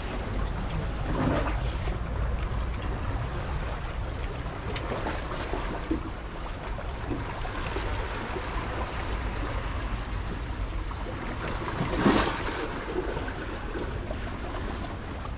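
Sea waves washing and breaking against the rocks at the foot of a seawall, swelling about a second in and again louder around twelve seconds, over a steady low rumble of wind on the microphone.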